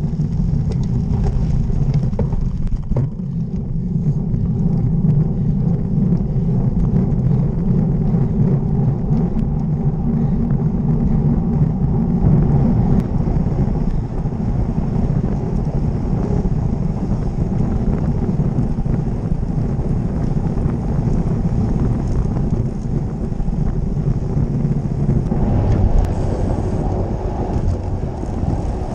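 Steady low rumble, as of a motor vehicle running, with no break; its tone shifts about 25 seconds in.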